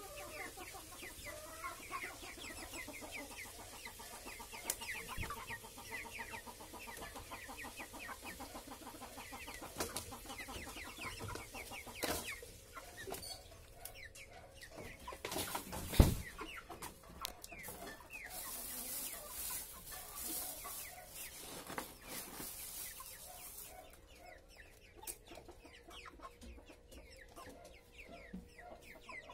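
Chickens clucking, a quick run of short calls that is busiest in the first half and thins later. About halfway through there is a single sharp knock, the loudest sound.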